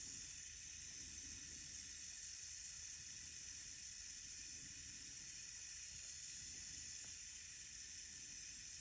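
Gas blowtorch flame burning with a steady hiss, heating seized exhaust manifold nuts to free them.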